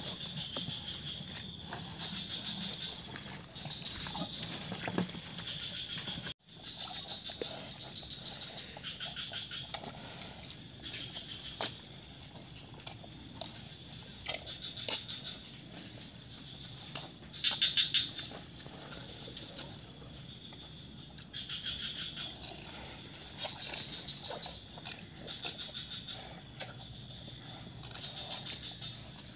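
Bali cattle drinking salt water from plastic buckets: irregular slurping and sucking at the water, with a short, louder burst a little past halfway.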